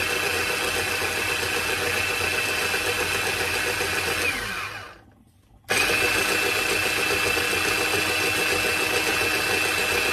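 Small electric grinder (molinito) running, grinding soaked chiles with a little of their broth into a thick paste; its motor gives a steady high whine. About four seconds in it is switched off and winds down, the whine falling in pitch, then starts again abruptly a second later and runs on.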